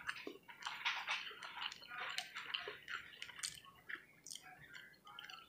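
Close-up chewing of a mouthful of food: a run of small, irregular, wet clicks and crackles from the mouth.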